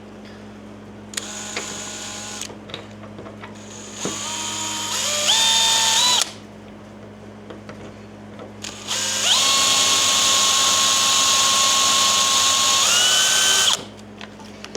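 Power drill run in three bursts, its motor whine stepping up in pitch as the trigger is squeezed harder; the last burst is the longest and stops abruptly near the end.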